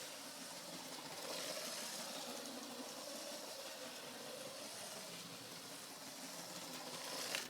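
Steady faint hiss with a low, wavering hum beneath it, cut off abruptly at the end.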